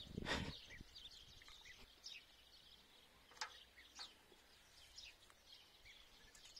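Faint chirping of small birds, with a low thump right at the start and two sharp clicks about three and a half and four seconds in, as a metal spoon knocks against a plastic tub of fertiliser powder.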